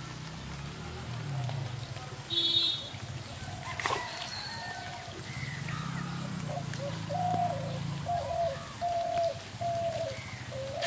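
A dove cooing in a run of short, evenly spaced notes, most of them in the second half, over a low steady hum. A short high chirp comes about two and a half seconds in, and a sharp click about four seconds in.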